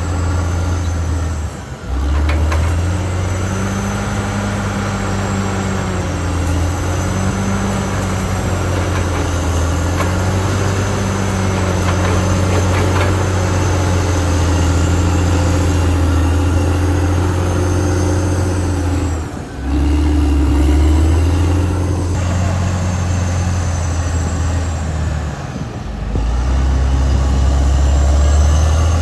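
Caterpillar D6R XL bulldozer's diesel engine running steadily under load, a deep continuous drone with a faint high whine that rises and falls above it. The level dips briefly three times, about 2, 19 and 26 seconds in.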